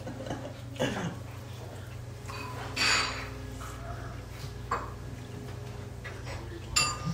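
Metal chopsticks and spoon clinking against ceramic and stone bowls, a few separate clinks over a low steady hum.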